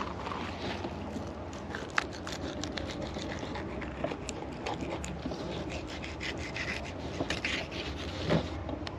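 Fillet knife slicing through a wahoo's flesh along the backbone: a continuous scratchy scrape of the blade over bone and skin, with many small ticks and a sharper click about two seconds in and again near the end.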